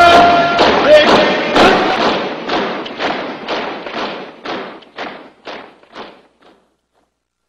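Soundtrack music ending: after a few held notes in the first second, a heavy drum beat repeats about twice a second and fades away to nothing over the next five or six seconds.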